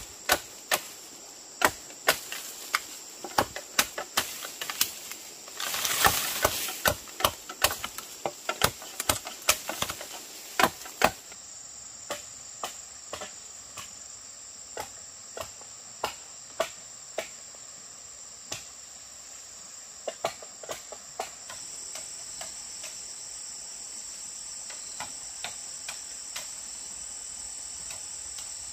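Insects chirring steadily in a high, even drone. Over it come sharp knocks, about two a second through the first ten seconds, then more scattered and fainter. A brief rustling swell comes about six seconds in.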